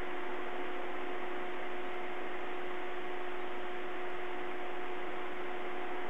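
Steady electronic hiss with a constant two-note hum underneath, unchanging throughout: the noise floor of a live nest-camera's audio feed.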